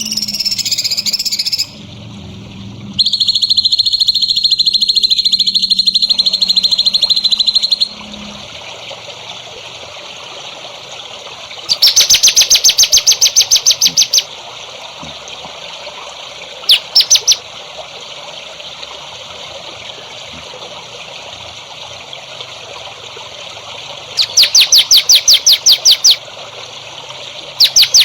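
Recorded songbird calls: a long, even buzzing trill, then repeated loud, rapid trills of about nine high notes a second, over a steady trickle of water.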